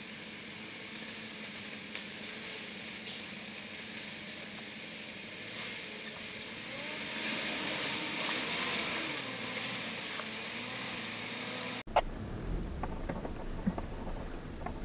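Off-road SUV's engine working as the vehicle crawls over a rocky track, its pitch rising and falling and growing louder midway. About twelve seconds in, a cut to a lower rumble with sharp knocks from inside a vehicle on rough ground.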